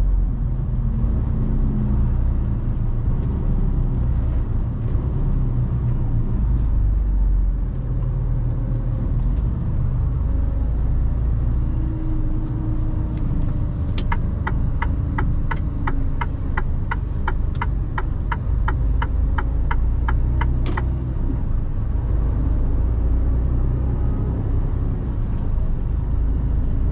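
Low, steady rumble of a Mercedes-Benz Actros truck on the move, heard from inside the cab. About halfway through, an even ticking at about two and a half ticks a second runs for some seven seconds: the turn-signal indicator.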